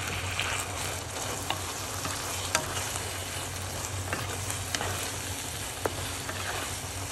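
Pancit noodles in sauce sizzling in a hot pan as they are stirred and tossed, with a few light clicks of the stirring utensil.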